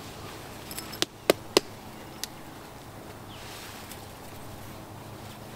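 Four sharp clicks or snaps in quick succession, about a second in, as a person settles into a camping hammock, over a steady background of evening bush ambience.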